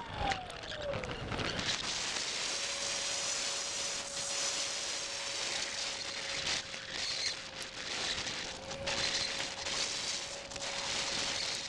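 Rain-soaked onboard microphone on a model plane in flight: a hiss of rushing air full of crackles and pops from rain in the mic, with the motor's whine falling in pitch at the start and then holding a steady tone.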